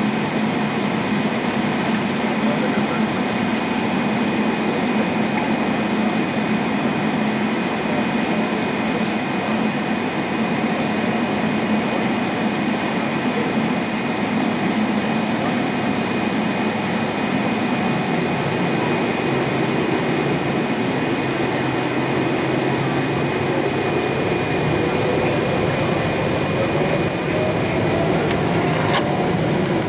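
Jet airliner cabin noise heard from a window seat: a steady rush with a constant high whine, and a tone that rises steadily over the last ten seconds or so.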